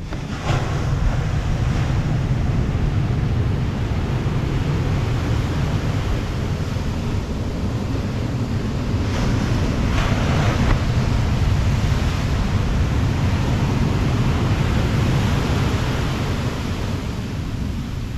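Pacific surf breaking and washing up the sand in a continuous rush, with a swell of white noise about half a second in and another around nine to eleven seconds in as waves crash. Wind buffets the microphone, adding a steady low rumble.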